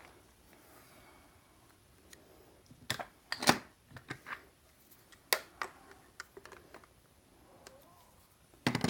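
A handful of separate sharp clicks and knocks, spaced irregularly, from metal computer parts and tools being handled while a server computer is taken apart.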